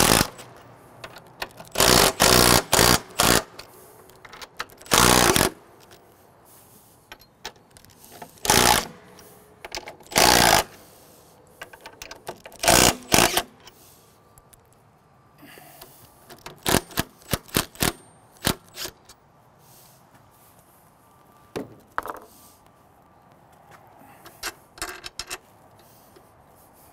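Makita cordless impact driver hammering in short bursts of a second or so, loosening and backing out 9/16-inch bolts from a steel door block. In the second half come quieter metallic clicks and clinks as the bolts and block are handled.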